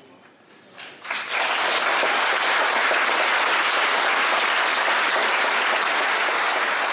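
Audience applauding, starting suddenly about a second in and holding steady and loud.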